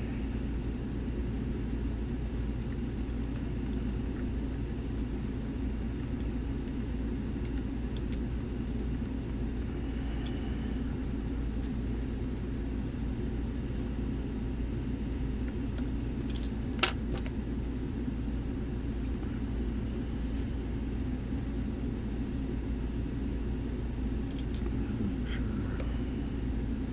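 Faint metallic clicks and scrapes of a deep hook lock pick and tension bar working the pins of a pin-tumbler lock, with one sharper click about two-thirds of the way through, over a steady low hum.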